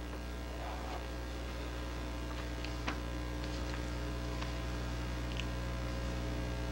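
Steady electrical mains hum from the sound or recording system, with a few faint ticks and rustles of paper being handled at the lectern, one slightly louder about three seconds in.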